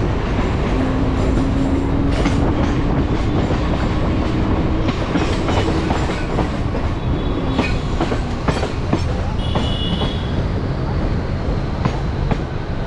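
ICF-built Mumbai suburban local train running at speed, heard from inside the coach: a steady loud rumble with wheels clicking over the rail joints, the clicks thickest in the middle.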